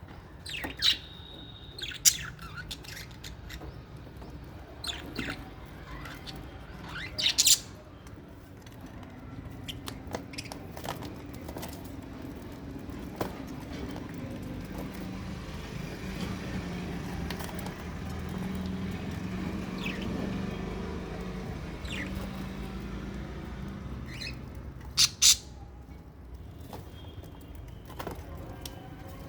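Small parrots, lovebirds and budgerigars in an aviary, giving short, sharp calls now and then. The loudest calls come about seven seconds in and again near the end. A low steady hum runs underneath and swells in the middle.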